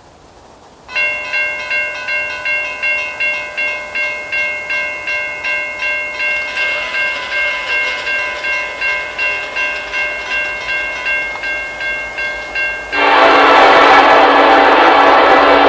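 Railroad crossing signal bell starts ringing about a second in, a little over two strokes a second, as the crossing activates and the gates lower. About 13 s in, a Norfolk Southern freight locomotive's horn sounds loudly, a sustained chord that drowns out the bell for an approaching train.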